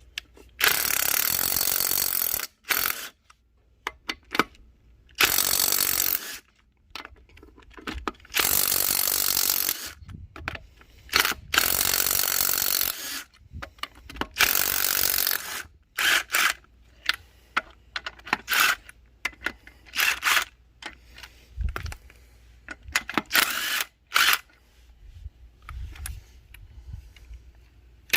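DeWalt cordless impact wrench hammering lug nuts loose on a car wheel. There are five long runs of a second or two each, then a string of short bursts.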